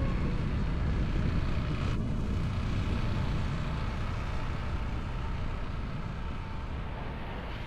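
Vehicle on the move: a steady low rumble with road and wind noise, slowly fading away over the last few seconds.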